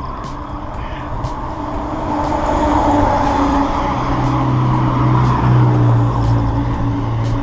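Wind and road rumble on a moving action camera. About halfway through, a motor vehicle's steady engine hum rises over it.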